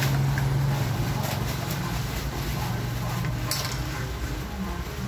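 Light metallic clinks and handling noise from a screwdriver and stainless screws being worked into a roof-rail end foot, with a sharper click about three and a half seconds in, over a steady low hum.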